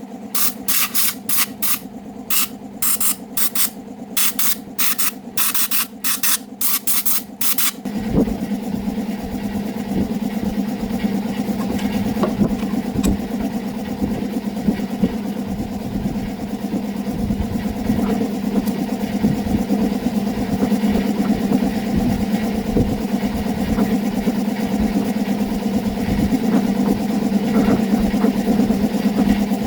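Motorbike engine running steadily. For the first eight seconds or so, short hissing bursts come about twice a second over it, then stop, and the engine runs on fuller and steadier.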